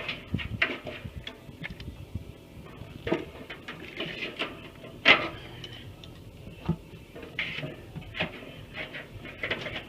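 Irregular clicks and knocks of tools and metal gear being handled, the loudest a sharp knock about five seconds in.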